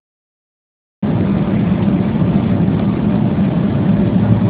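Steady cabin noise of a jet airliner in flight, engines and rushing air heard from a window seat, cutting in abruptly about a second in.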